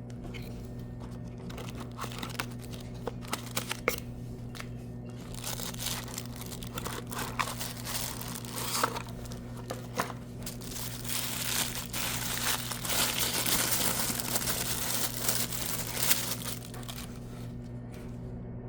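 Packaging crinkling and rustling as a camera is unboxed: a few sharp clicks and taps at first, then a long stretch of crinkling that grows denser and stops shortly before the end, over a steady low hum.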